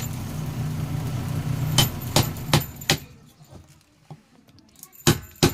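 A small motor hums steadily while sharp knocks or clicks come at a fairly even pace, about three a second; the hum dies away about three seconds in, and a few more sharp knocks follow near the end.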